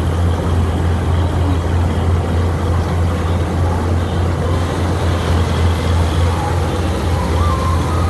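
Syan 998 combine harvester running steadily under load while cutting wheat: a constant low engine drone with the noise of the header and threshing machinery.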